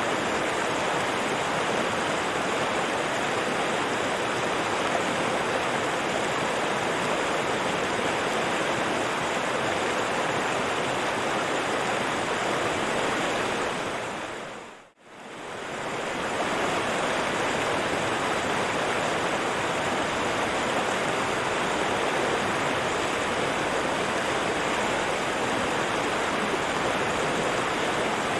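Steady rushing of a flowing river. About halfway through it fades down to near silence and swells back over a couple of seconds.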